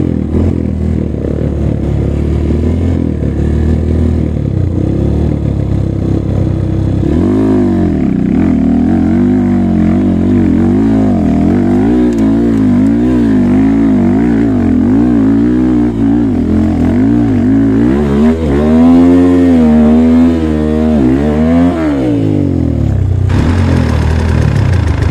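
Dirt bike engine revving up and down again and again, over a steadier running engine in the first few seconds; the hardest revs come about three-quarters of the way through.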